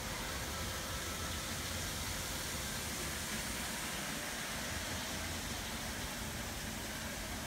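Steady outdoor background noise: an even hiss with a low rumble and no distinct events.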